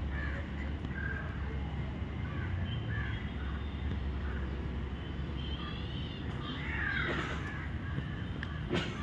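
Crows cawing, several calls in a row, with a louder run of calls about seven seconds in, over a steady low rumble.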